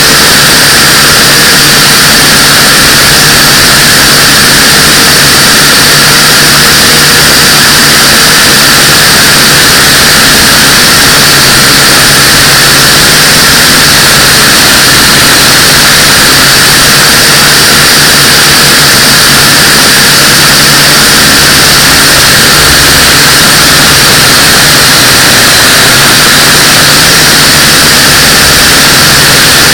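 Pioneer UFO 509V quadcopter's motors and propellers whining steadily at a constant pitch, very loud and distorted as if right at the microphone.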